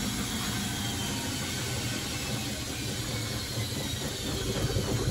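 Bosch WFF1401 washing machine running on a spin, its drum and brushed motor making a steady mechanical rumble and hum. A faint motor whine falls in pitch toward the end as the drum slows. The motor has new bearings and brushes, and the brushes are still a little loud.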